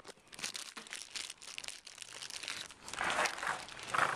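Irregular crinkling and rustling, louder in the last second or so.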